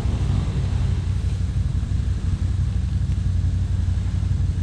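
ATV engine running steadily under way on a trail, a continuous low engine note with no change in speed.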